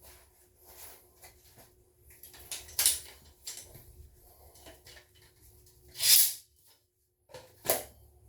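Scattered small clicks and rustles of hands handling a silicone tube and a rubber toilet tank gasket, with a short loud hiss-like rustle about six seconds in and a faint steady hum underneath.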